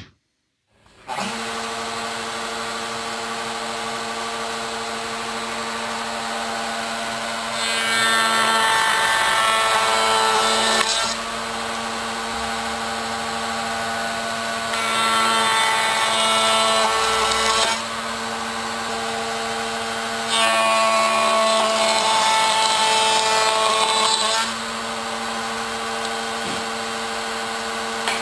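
Table-mounted router switched on about a second in and running with a steady whine. It gets louder and rougher three times, for about three to four seconds each, as boards are pushed through the stile-and-rail bit cutting the bead profile.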